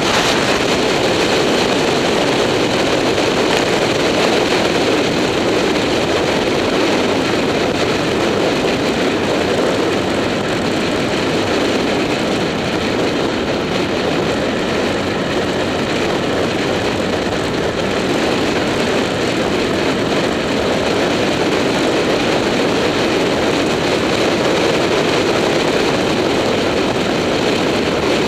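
Steady rush of wind over an action camera's microphone on a motorcycle moving at road speed, mixed with the motorcycle's engine running at a steady cruise.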